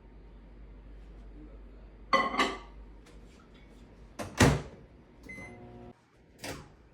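Microwave oven running with a low steady hum, broken by loud clunks of its door and handling at about two, four and six and a half seconds. The hum cuts off suddenly about six seconds in.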